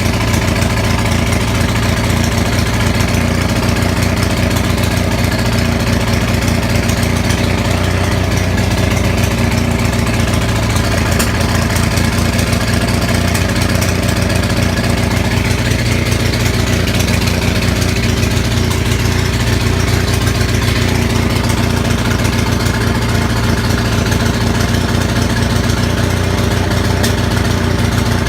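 Onan 6500 commercial gas generator engine running steadily and loud with no muffler, misfiring. The misfire comes from badly fouled spark plugs.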